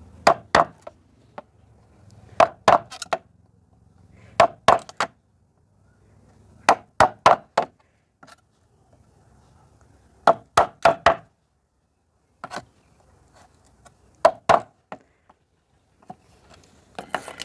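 Hammer striking a half-inch chisel as it cuts a slot into a 6 mm MDF plate. The blows come in quick runs of three to five, with short pauses between runs.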